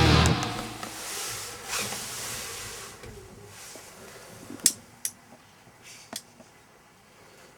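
The tail of a rock music track dying away, then a few sharp clicks against quiet room noise.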